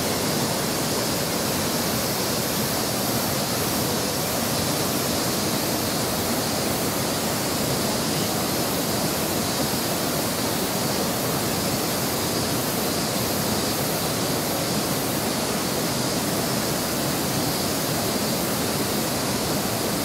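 Steady rushing of a waterfall and the stream below it, a constant roar of water with no break.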